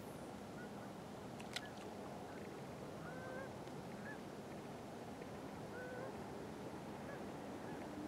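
Faint geese honking, a few short calls spread over several seconds, over a steady low hiss of open air. A single sharp click about a second and a half in.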